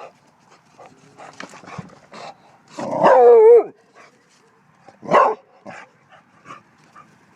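A dog barking at a cat: one long, drawn-out bark with wavering pitch that drops at the end about three seconds in, then a shorter bark about two seconds later, with faint ticks and scuffs in between.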